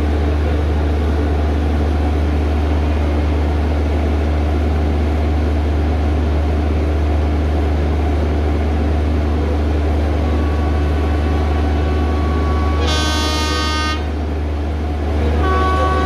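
Steady running rumble of LHB coaches rolling on the track, with the WAG5A electric locomotive's horn sounding: a faint tone building from about ten seconds in, a strong blast of about a second near thirteen seconds, and another blast starting near the end.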